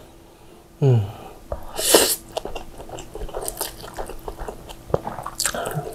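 A person slurping up saucy instant fried noodles (Indomie goreng) in two loud bursts, about two seconds and five and a half seconds in, with wet chewing and lip-smacking clicks between them.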